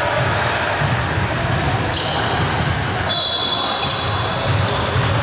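Basketball game play in a large hall: a ball bouncing on the court and several short, high sneaker squeaks from players' shoes.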